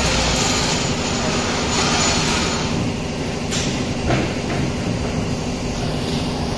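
Steady mechanical rumbling and clattering of machinery running, with a brief sharp knock about four seconds in.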